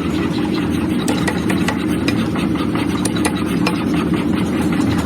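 Workshop machinery running steadily, with irregular sharp metallic clicks and knocks over the hum.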